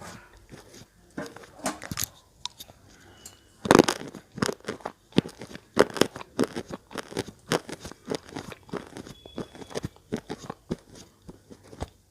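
Slate pencil bitten and chewed close to the microphone: a loud bite about four seconds in, then a fast run of sharp crunches.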